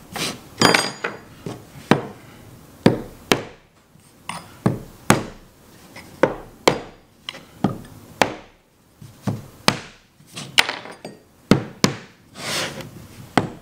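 A pointed steel awl stabbed repeatedly into a raw wood cabinet panel, punching fake wormholes to distress it. It makes sharp, irregular taps, roughly one or two a second.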